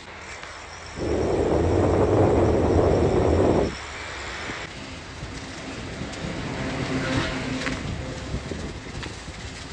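Bicycle riding noise heard from a camera on the moving bike: tyres rumbling over the towpath with air rushing past. A much louder stretch starts about a second in and cuts off sharply almost three seconds later.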